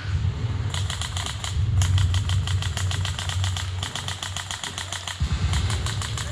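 Airsoft rifle firing on full auto in three bursts, the longest about two and a half seconds, at roughly a dozen shots a second. A steady low rumble runs underneath.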